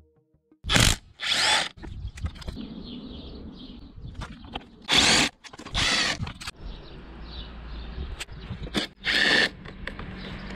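Power tool, such as a drill, running in about five short bursts a few seconds apart, with lower clatter between them.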